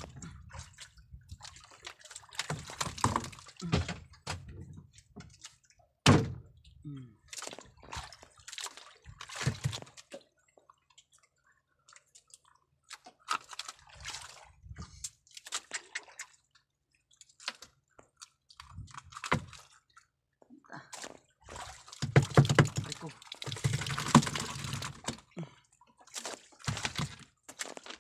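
Irregular thunks and knocks of a freshly caught fish, hands and fishing line being handled against the inside of a small boat's hull while the fish is unhooked. A busier stretch of handling noise comes a little over three-quarters of the way through.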